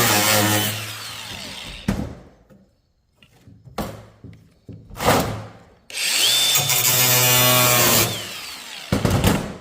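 Handheld power tool cutting sheet metal, run in two bursts of about two seconds. The second run starts with a whine that rises as the motor spins up. Sharp knocks of metal being handled fall between the runs.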